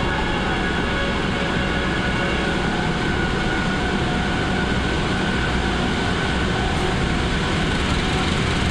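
CC 203 diesel-electric locomotive running steadily as it draws a passenger train slowly into the platform. A thin, steady high tone sounds over it and fades out about six seconds in.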